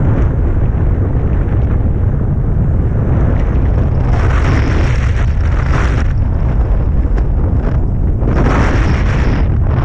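Air rushing past a hang glider's wing-mounted camera in flight, buffeting its microphone: a loud, steady low rumble, with two stretches of louder hissing rush, about four seconds in and again near the end.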